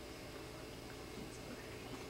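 Quiet room tone: a steady background hiss with a faint low hum, and no distinct sound.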